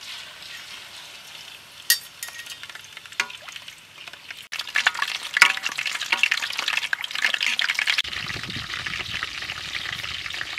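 Slab of pork belly sizzling as it deep-fries in hot oil in a wok, a steady hiss dotted with sharp pops and spits that grows louder and busier partway through. Near the end a low crackle joins it, from a wood fire burning in a clay stove.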